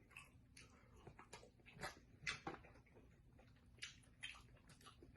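Faint, scattered wet mouth clicks and smacks of someone chewing seafood, a few a little louder about two and four seconds in.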